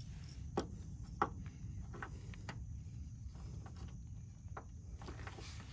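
Faint, scattered metallic clicks and ticks of an adjustable wrench working a car's sheet-metal pinch weld, with two sharper clicks about half a second and just over a second in, over a low steady rumble.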